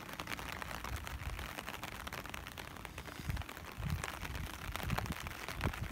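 Footsteps on wet pavement, soft low thuds every second or less in the second half, over a steady crackling hiss.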